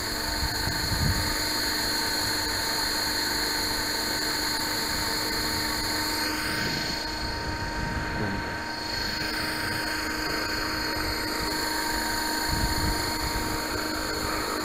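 Radio-controlled T-Rex 600-size helicopter running with a steady whine, with a few low bumps about a second in and again near the end.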